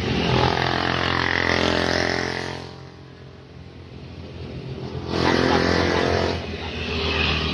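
Road traffic going by close at hand: a vehicle engine runs loud for the first two to three seconds and fades, then another vehicle passes loudly about five seconds in.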